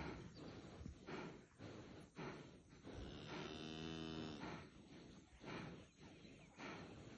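A bull gives one long low bellow, about a second and a half long, partway through, while a Nguni bull and a Cape buffalo bull spar with horns locked. Short rough huffs recur every second or so around it.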